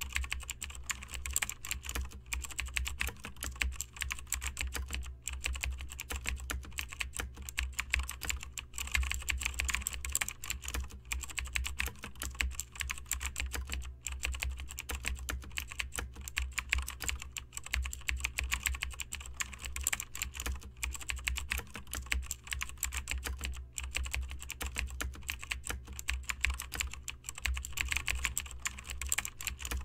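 Computer keyboard typing sound effect: rapid, continuous key clicks.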